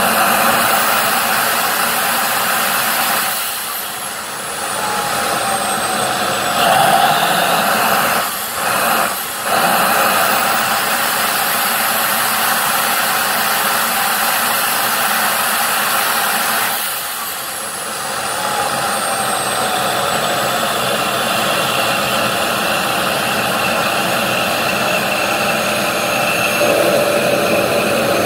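Homemade turbocharger-based turbojet engine running with a loud, steady rush and a high turbine whine. A few times the sound dips and the whine slides down in pitch, then it picks back up.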